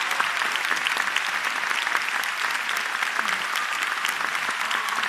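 Audience applauding steadily, a dense mix of many hand claps.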